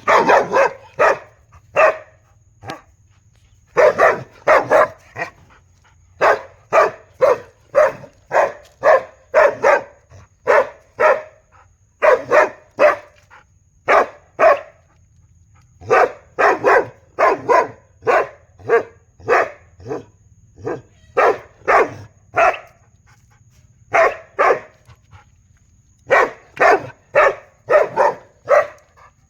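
A big dog barking over and over in bouts of several quick barks, about two or three a second, with short pauses between bouts.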